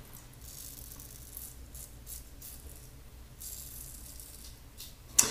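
Safety razor with a Maggard V3 head scraping stubble through shaving lather in a run of short, hissy strokes, with one longer stroke about three and a half seconds in.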